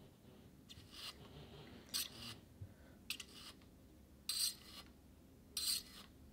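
Louet mini wool combs stroked through fine alpaca fiber, one comb's metal tines dragged through the fiber held on the other: about five short brushing rasps, roughly one a second. Each pass transfers fiber from the loaded comb to the working comb.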